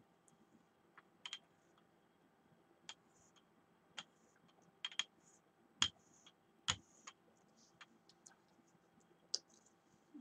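Scattered light clicks and taps at an irregular pace, with two louder knocks a little past the middle.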